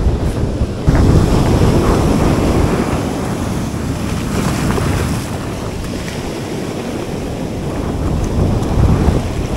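Strong wind buffeting the microphone over the wash of breaking surf, a low rumbling noise that gets louder about a second in.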